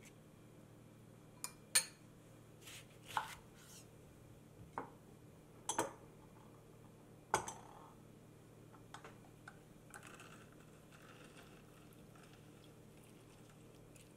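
A kitchen knife cutting a lemon on a wooden cutting board, with a scattering of sharp knocks over the first half. Later come softer scraping and squishing as a lemon half is twisted on a ceramic citrus juicer.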